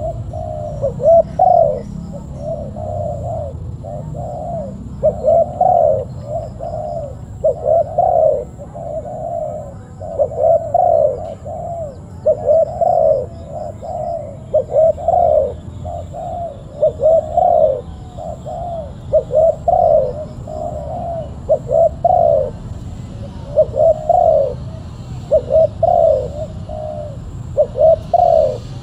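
Spotted dove cooing over and over, each phrase a quick run of several coos, repeated about every two seconds.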